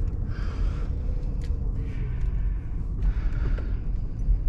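Steady low rumble of a car, heard from inside the cabin as it drives, with a few faint rustles and clicks.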